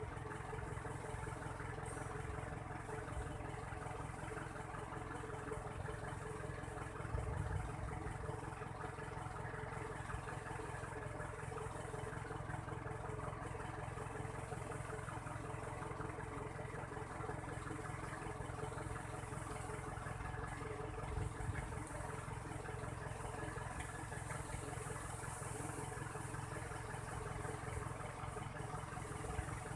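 Vehicle engine idling steadily, with a couple of faint knocks.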